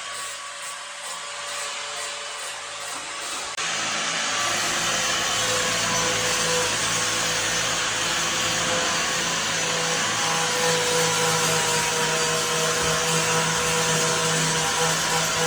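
A motor whirring steadily with a constant hum, jumping suddenly louder about three and a half seconds in.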